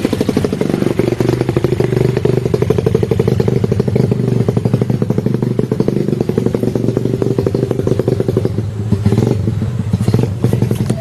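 Dirt-bike engine running steadily, a fast even firing beat, with a few short knocks near the end.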